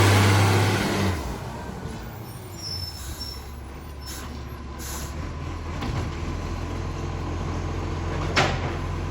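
Recycling garbage truck's engine, which has an exhaust leak, running loud and then falling away about a second in to a low steady idle. Near the end comes a short sharp hiss of air.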